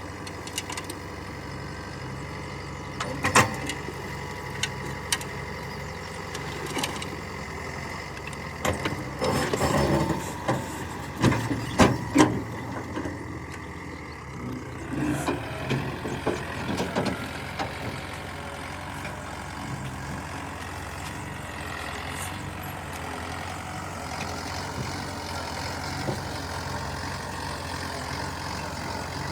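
Diesel engine of a backhoe loader running steadily, with sharp metallic knocks and clanks of the working machine: one about three seconds in and a cluster between about nine and twelve seconds.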